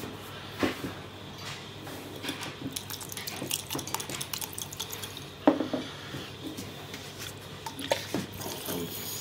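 Glass swing-top jar clinking and tapping as lavender sprigs are pushed down into the alcohol inside it, with a few sharper knocks among the light taps.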